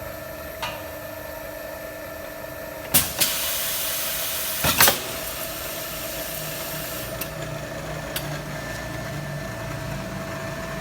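Automatic pipe-cutting machine running with a steady hum. About three seconds in there is a sharp clank, then about a second and a half of hissing, then two more clanks, which sounds like one working cycle of the machine.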